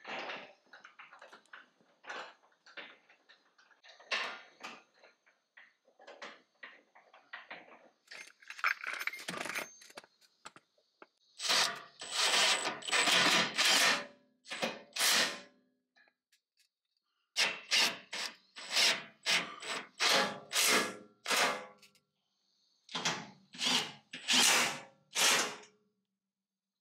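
Makita cordless impact driver with a socket running bolts in, in three runs of short bursts in the second half. Before them come quieter clicks and knocks of bolts and the metal grill being handled.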